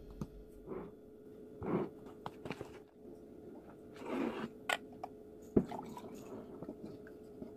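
Quiet kitchen handling sounds: a metal spoon scraping and clinking in a jar of brown sugar, then an enamel saucepan being lifted and tipped over a ceramic mug. There are scattered small clinks and knocks and a few soft scuffing noises, over a faint steady hum.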